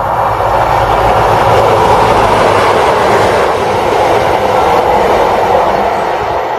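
Class 43 HST diesel power car passing at speed: engine rumble and wheel-on-rail noise building to a peak about two seconds in, then slowly easing.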